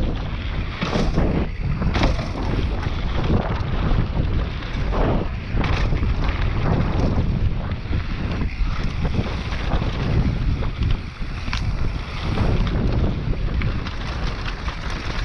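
Wind buffeting the microphone and tyres rolling over a dirt trail as a mountain bike is ridden, with a few sharp knocks from the bike over bumps.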